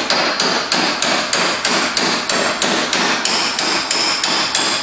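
Hammer tapping a steel bolt through a golf cart's rear leaf-spring shackle, a steady run of about four ringing metallic blows a second.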